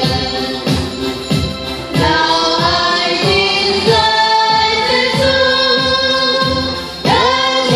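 A women's choir singing a Vietnamese hymn into microphones, over an accompaniment with a steady low beat. The voices drop out briefly near the end and a new line begins.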